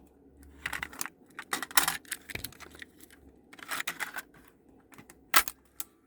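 Scattered light clicks and rattles of small hard parts being handled, in irregular clusters, with one sharper click about five seconds in.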